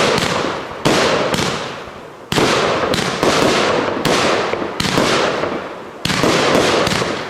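Fireworks display: aerial shells bursting one after another, about ten sharp bangs in quick, uneven succession, each trailing off in a fading hiss before the next.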